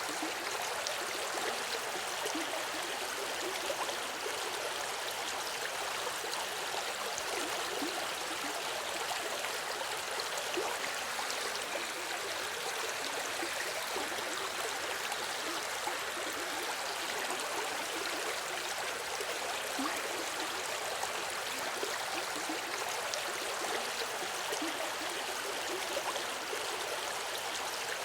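A river running: steady rushing and gurgling of flowing water.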